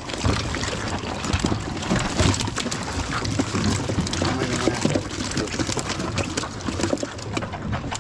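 Seawater splashing and sloshing, with many small irregular knocks.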